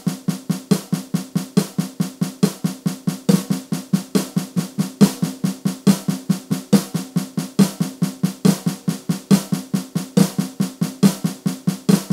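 Snare drum sound of a Donner Backbeat electronic drum kit, played as a rudiment exercise: fast, even stick strokes on the snare pad in an unbroken stream, with louder accents recurring at regular intervals.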